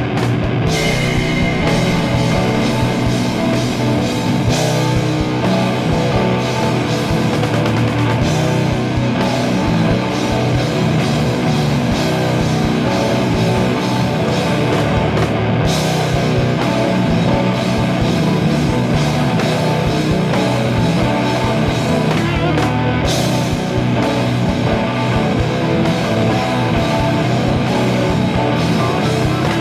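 Doom metal band playing: distorted electric guitars and drum kit in a dense, loud, steady passage.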